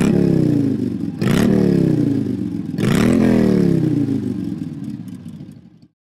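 iPhone ringtone of a motorcycle engine revving: three throttle blips, each climbing and then falling away in pitch, the last one dying out near the end.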